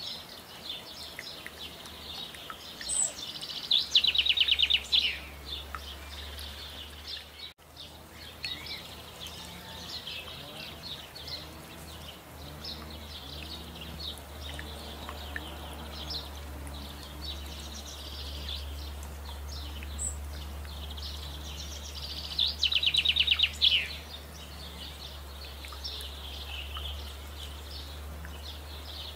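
Songbirds singing, with two loud, very rapid trilled phrases that drop in pitch, about four seconds in and again near the end, over a steady low hum.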